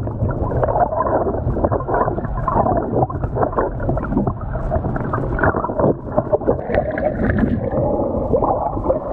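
Muffled water sloshing and bubbling, heard from under the water while snorkeling. It is a dense, irregular churning with a low rumble and no clear high end.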